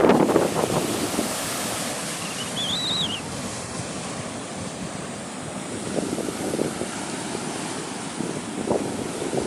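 Sea waves on the shore: a breaking wave fading away in the first second, then a steady wash of surf, with wind buffeting the microphone. A brief high chirp sounds about three seconds in.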